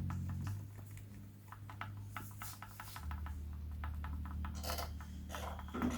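Faint, irregular small clicks and light taps from handling a small metal model hot-air engine, over a low steady hum.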